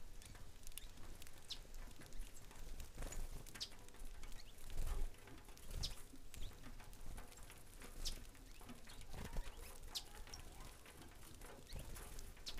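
Scattered short, high chirps from a flock of saffron finches feeding on grain at a platform feeder, with a few soft low bumps in between.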